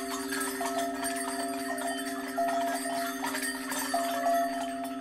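Improvised ambient percussion music: a steady low drone held throughout, with short repeated higher notes that step in pitch and scattered metallic chime-like strikes ringing above it.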